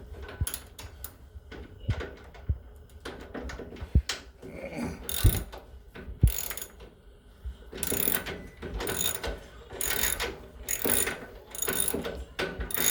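Ratchet wrench clicking as it loosens a bolt on a washer's damper shock mount. After a few separate metal knocks, steady back-and-forth strokes start about eight seconds in, at about two a second.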